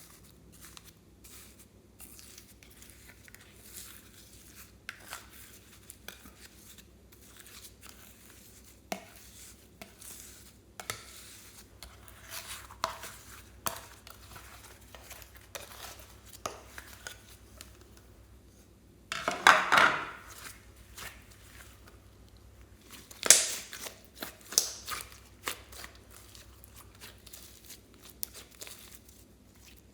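Slime being handled and worked by hand: scattered small crackles, clicks and squishes, with a louder crunching burst about two-thirds of the way in and another soon after.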